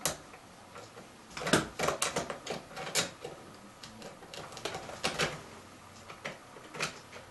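A hand screwdriver working screws out of a plastic Sony clock radio case: irregular sharp clicks and taps of the tip in the screw heads and against the housing, the loudest about one and a half seconds in.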